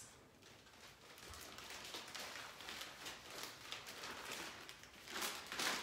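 Plastic zip-top bags rustling and crinkling as they are handled, with many small crackles and a louder rustle near the end.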